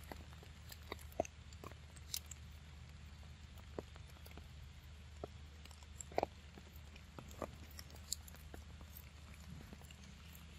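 Irregular, sharp little clicks and ticks, a dozen or so scattered unevenly, with the strongest about six seconds in, over a low steady hum.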